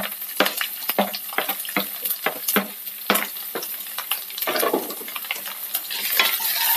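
Hot oil sizzling and crackling with many sharp pops as chopped ginger, garlic, green chillies and curry leaves fry in a nonstick pan. About six seconds in, a spatula starts stirring them and the sizzle grows louder.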